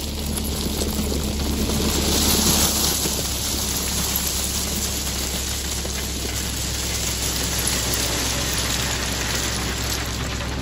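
Crushed stone pouring out of a backhoe's loader bucket, a dense rattling hiss of gravel landing on landscape fabric, loudest a couple of seconds in. The machine's engine runs steadily underneath.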